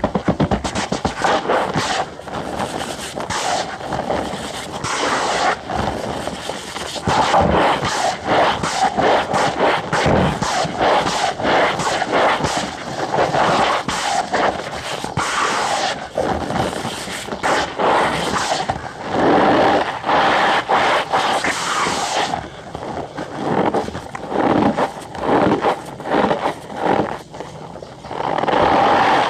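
Cornstarch powder being squeezed and crushed by hand, giving a continuous run of squeaky crunching with many irregular crackles.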